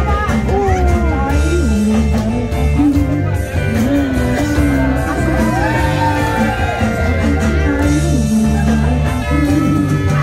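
Live band music played loud through a PA system: a vocalist sings a wavering melody into a microphone over a steady bass and beat.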